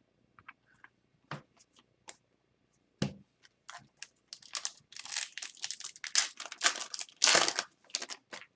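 Cards and packaging handled on a table: a few faint clicks and a knock about three seconds in, then, from about four seconds in, a trading-card pack's foil wrapper crinkling and tearing, loudest near the end.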